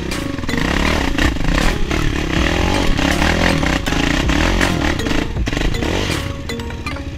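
Quad bike engine revving and running under load on a rough dirt trail, mixed with background music.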